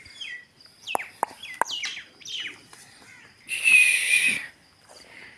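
Small birds calling with quick downward-sweeping chirps, then a louder burst of chatter about three and a half seconds in, over a steady high insect trill.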